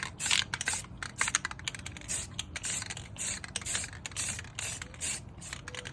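Aerosol spray-paint can sprayed in many short bursts, a few a second, laying the first coat of paint onto a wheel rim.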